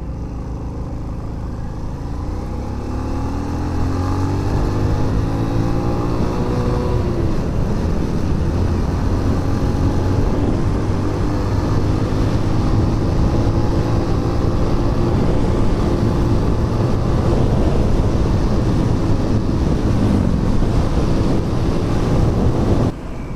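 Motorcycle engine revving up over several seconds, then holding a steady cruising note, with wind and road noise throughout. The sound drops off abruptly near the end.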